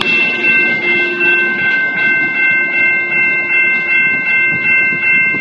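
Railroad grade-crossing bell ringing in a steady rhythm of about two strokes a second, over the rumble of a passenger train rolling by on the rails.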